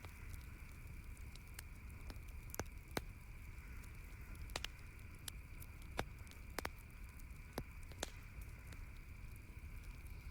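Wood campfire crackling: irregular sharp pops and snaps, a couple of louder ones about three and six seconds in, over a steady faint background hum and hiss.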